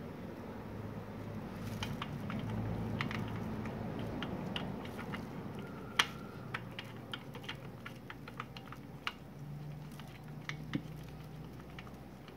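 Scattered light clicks and ticks from a clear plastic water bottle held under a scooter engine's drain as the flushing oil drains into it, with one sharper click about halfway through. A low hum runs underneath.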